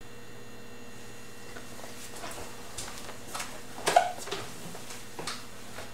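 A book being handled: a few soft rustles and light taps, the loudest a brief knock about four seconds in, over a steady hum and hiss.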